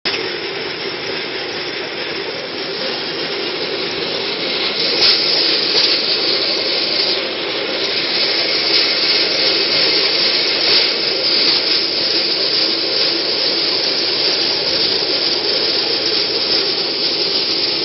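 Pedal-powered rail bike rolling along old railway track: a steady, loud running noise of its wheels on the rails, with no pauses.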